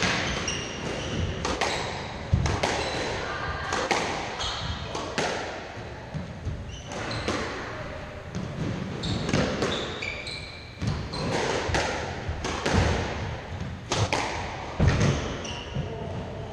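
Squash rally: the ball cracks off the rackets and the court walls in quick, irregular hits, and shoes squeak briefly on the wooden court floor.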